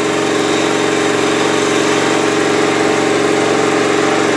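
Gas pressure washer's engine running steadily at a constant speed, with a spray hiss above it.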